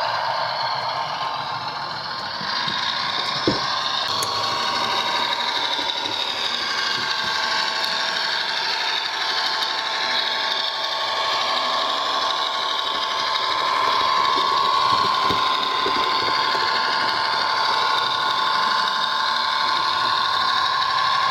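Bachmann OO gauge Class 150 DMU model's sound decoder playing its diesel engine sound through the model's small on-board speaker as the train runs. The sound is thin with no deep bass, its pitch wavering slightly, and there is one sharp click a few seconds in.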